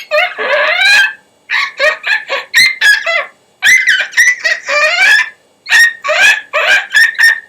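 A person whistling with the throat, a high, cartoony made-up tune of many short notes that glide up and down, played in quick runs with brief pauses between them.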